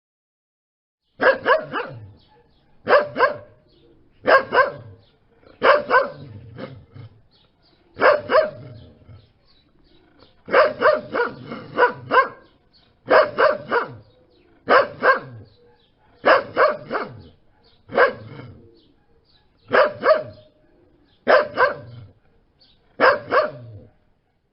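Dog barking in repeated bouts of two or three quick barks, about one bout every second and a half, starting about a second in after a brief pause.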